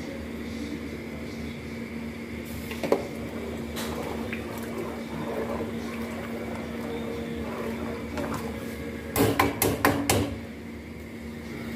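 Rice parboiling in water in an aluminium pot on a gas burner, over a steady hum. A single knock comes about three seconds in. Near the end a metal slotted spoon clanks several times in quick succession against the pot.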